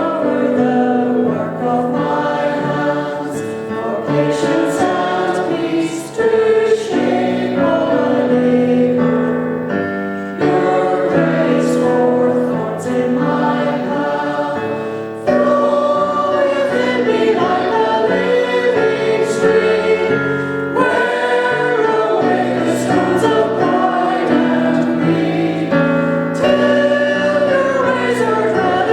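A choir singing a hymn, many voices together holding and changing sustained notes.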